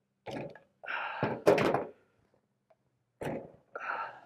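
A few short metallic knocks and clanks, the sharpest about a second and a half in, as locking pliers are worked free of a cast iron weight plate and set down on a table.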